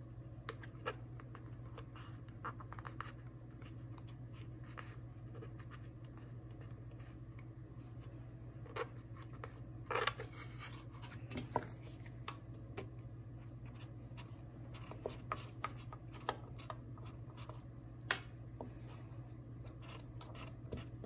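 Faint scattered scratching, rubbing and light clicks of a vinyl wrap skin being handled and pressed onto a plastic rifle magazine by hand, over a steady low hum.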